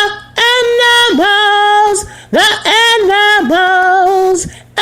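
A woman singing alone, slow and unaccompanied, holding long drawn-out notes with a light waver in pitch, with two short breaks between phrases.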